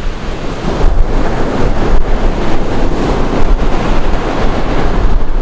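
Wind buffeting the microphone with a steady rumble, over the continuous wash of surf on a beach.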